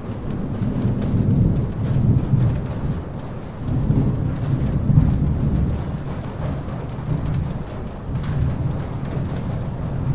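Steady rain with rolling thunder, a low rumble that swells and fades several times under the hiss and patter of the drops.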